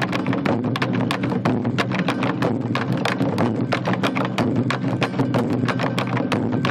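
Ensemble of large Korean barrel drums (buk) beaten rapidly with sticks, a dense, unbroken stream of sharp strikes over a steady low ringing of the drum bodies.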